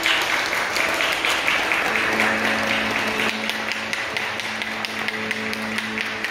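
Wedding guests applauding, steady rapid hand-clapping. Music with long held notes comes in underneath about two seconds in.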